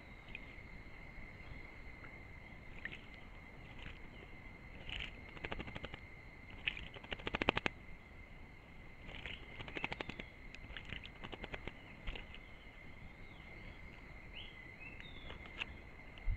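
A thrush bathing in a shallow pool, fluttering its wings in the water in two bouts of quick splashing, about six and ten seconds in. Behind it are a steady high tone and a few short bird chirps.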